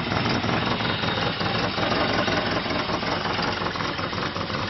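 Lada Samara 1.5 GL's 1.5-litre four-cylinder carburettor engine idling unevenly. It is running rough because the carburettor is more or less worn out.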